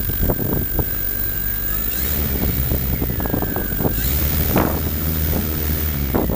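MikroKopter multicopter's electric motors and propellers whining as it hovers low, the pitch sagging and rising again a few times as the motors correct. Gusty wind buffets the microphone in repeated low rumbles.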